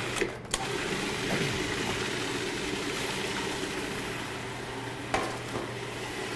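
Electric food processor running steadily, pureeing sweet potatoes, roasted red peppers, garlic and lemon juice into hummus. It dips briefly just after the start, and there is a short knock about five seconds in.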